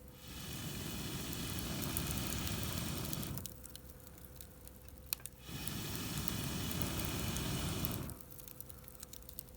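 Two long blows through a fire-blowing pipe into a wood fire, each about three seconds, with a pause for breath between. The fire crackles in the quieter gaps.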